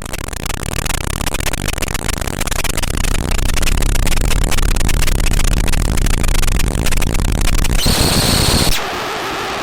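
Chaotic electronic noise: a dense, crackling static hiss spread across the whole range, building in loudness over the first few seconds. Near the end it switches to a harsher stretch with a high steady tone, then drops to a quieter hiss.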